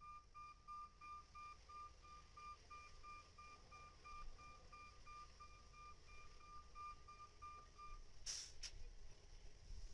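Faint rapid beeping of a Sperry rail-test hi-rail truck's reversing alarm while the truck moves onto the track. The beeping stops about eight seconds in as the truck comes to a halt, followed by two short clicks.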